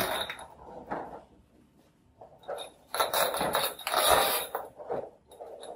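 A large white plastic diffuser sheet from an LCD TV backlight being handled, rustling and crackling as it flexes: a burst at the start, a smaller one about a second in, and a longer, louder stretch from about two and a half to five seconds.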